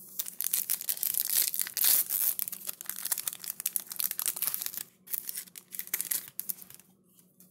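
Plastic wrapper of a trading card pack crinkling and tearing as it is opened and handled: a dense run of small crackles that thins out and dies down near the end.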